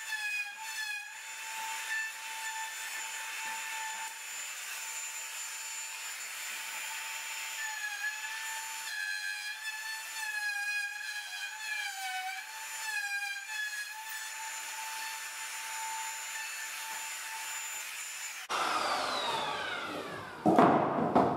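Makita cordless router running with a high whine, its pitch dipping again and again under load as it plunges through a hinge jig and cuts the hinge housings into the door edge. Near the end it is switched off and winds down with a falling pitch, followed by a loud clatter.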